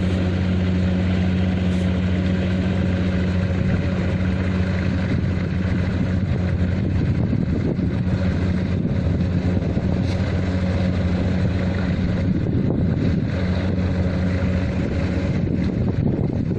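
Kubota harvesting machine's diesel engine running steadily at a constant speed, a low even drone.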